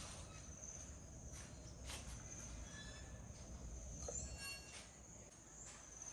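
Faint, steady high-pitched insect chirring, like crickets, with a low background rumble underneath.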